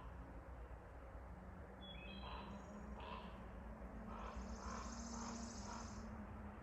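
Faint forest birdsong: a few short high chirps about two seconds in, then a high buzzy trill for a couple of seconds near the end, over a low steady rumble.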